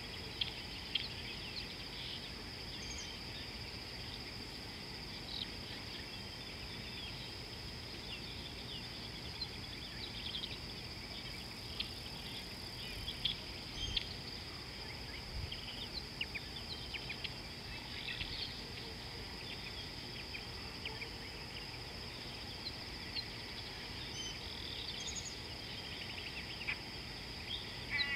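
Bush ambience: a steady high-pitched insect drone, with short bird chirps scattered through it and a brief fast trill near the end.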